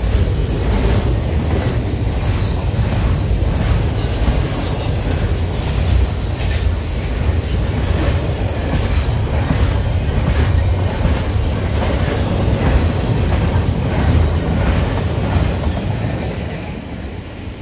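Norfolk Southern intermodal freight cars rolling past: a steady rumble with repeated clicks of wheels crossing rail joints, starting to fade near the end.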